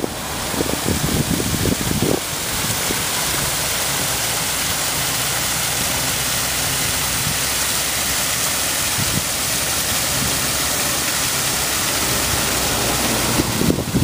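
Steady rushing hiss of water still falling and running beneath the ice of a partly frozen waterfall. Wind buffets the microphone in the first two seconds.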